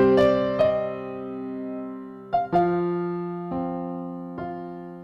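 Background music: slow keyboard chords, each held and slowly fading, with fresh chords struck about two and a half seconds in and again a little later.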